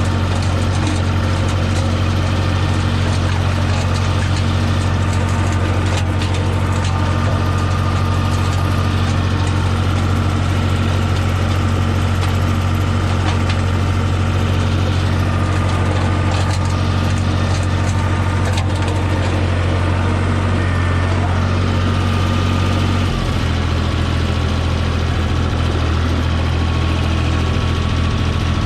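Tractor engine running steadily at constant speed; about 23 seconds in its note shifts slightly lower, then runs on.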